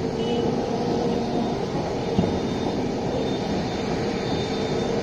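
Jet airliner engines running: a steady roar with a faint high whine.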